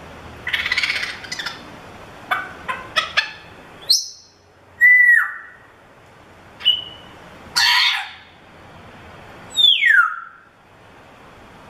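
African grey parrot calling and mimicking: a rasping squawk, a quick run of clicks, then a string of clear whistles, one rising, one held, one short, and a second rasping squawk, ending with a long falling whistle.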